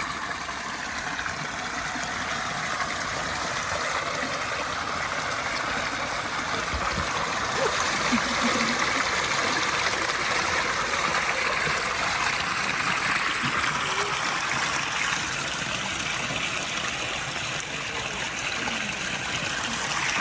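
Water from a holy spring flowing and trickling steadily, getting a little louder about eight seconds in.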